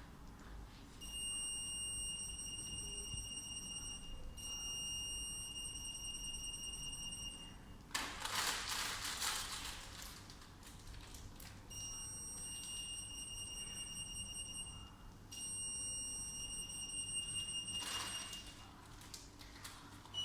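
An EAS acoustomagnetic anti-theft antenna alarm sounding: a steady high-pitched tone, set off by an AM security tag between the antennas. The tone sounds four times, about three seconds each, in two pairs, with a burst of noise between the pairs.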